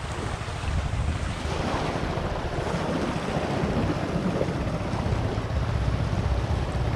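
Wind buffeting the microphone with a steady low rumble, over the wash of surf on a pebble shore.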